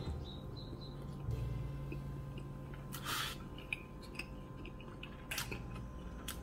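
Quiet chewing of a mouthful of rice, with a few short scrapes and clicks of a metal spoon against a ceramic bowl as more rice is scooped up.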